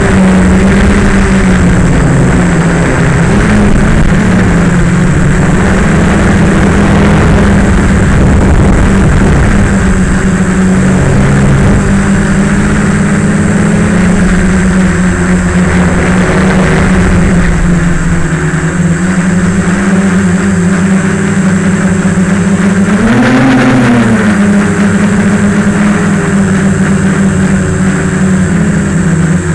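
Multirotor drone's electric motors and propellers humming steadily, loud and close as heard from its onboard camera, the pitch shifting a little with throttle and rising and falling briefly about 23 seconds in.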